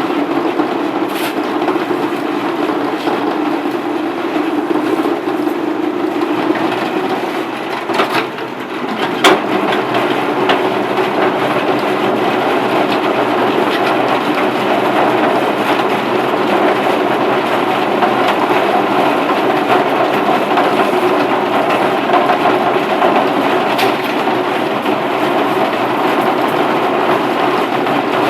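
A machine running steadily with a continuous rattling noise, and sharp knocks about eight and nine seconds in.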